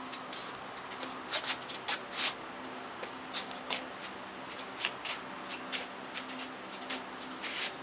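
Handling noises: a dozen or so short scuffs and rustles, with a longer hiss near the end, over a faint steady hum.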